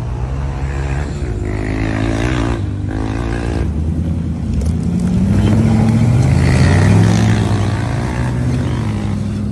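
Off-road rig's engine working under load while rock crawling, revving up about halfway through and easing back off near the end.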